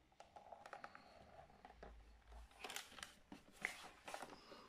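Faint handling noise from an Oric-1 computer's plastic case and its plugged-in cables being turned over in the hands: a scatter of small clicks and rustles, a little louder in the second half.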